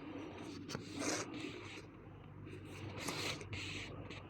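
Faint rubbing and scraping in short rustles, stronger about a second in and again around three seconds: hands turning over an inflated bicycle inner tube while checking it for the puncture.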